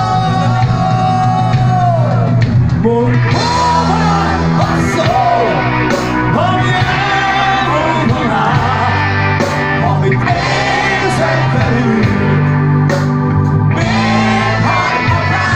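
Live rock band playing: a man singing lead into a microphone over electric guitar, bass guitar, keyboard and drums, with a long held sung note at the start.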